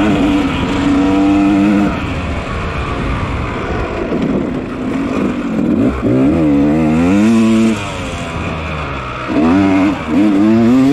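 Yamaha 250 dirt bike engine under racing throttle. It holds high revs, drops off at about two seconds, then climbs and falls twice as the throttle is opened and closed.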